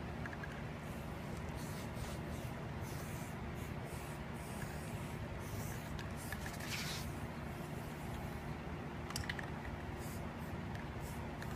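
Aerosol spray-paint can hissing in several short bursts, the longest about seven seconds in, over a steady low rumble.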